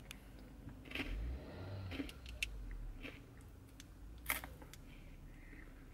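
Steady low rumble of a car cabin, with a few sharp clicks and crinkles from handling the camera and the wrapper of a protein bar being eaten; the loudest click comes a little past the middle.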